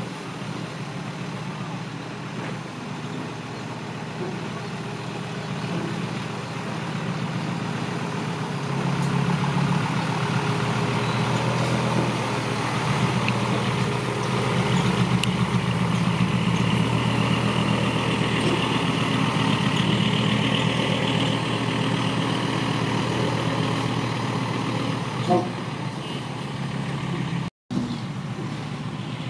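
Dump truck's diesel engine running steadily, growing louder about eight seconds in. The sound cuts out for an instant near the end.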